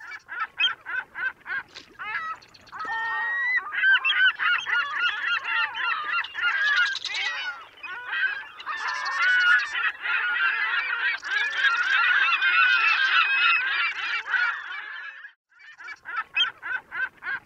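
A flock of birds calling: a few separate calls at first, then many overlapping calls from about four seconds in, breaking off briefly near the end.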